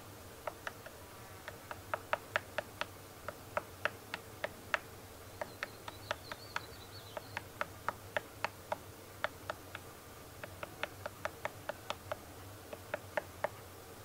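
Male scaly-bellied woodpecker excavating its nest hole in a tree trunk. Its bill strikes the wood in a quick, irregular series of sharp taps, a few a second, with brief pauses.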